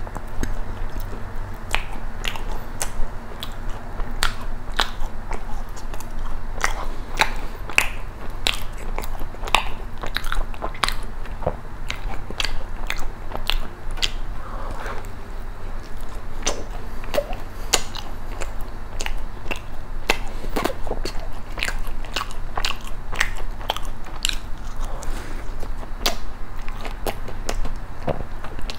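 A person biting into and chewing a thick-filled macaron with a corn filling, close to the microphone: an irregular run of small crisp crunches from the shell.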